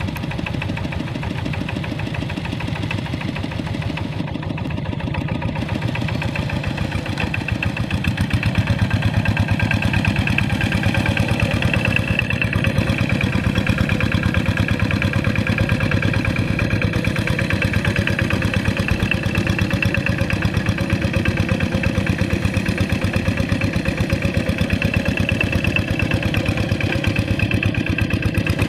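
Single-cylinder diesel engine of a walk-behind two-wheel hand tractor running steadily with a rapid, even firing beat while ploughing a rice paddy. It grows louder at about seven seconds in.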